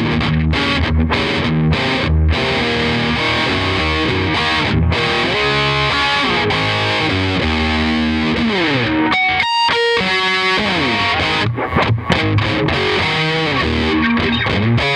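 Electric guitar played through a freshly serviced Yamaha DG-60 112 combo amplifier, close-miked at the speaker, with a distorted lead tone. A continuous run of single notes and gliding pitches thins to a few ringing high notes about nine seconds in, then picks up again with fast lines.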